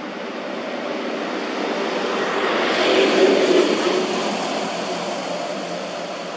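A motor vehicle passing by: its engine noise swells to a peak about three seconds in, then fades away.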